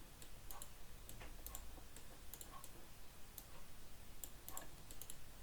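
Faint computer mouse clicks, an irregular series of sharp clicks, some in quick pairs.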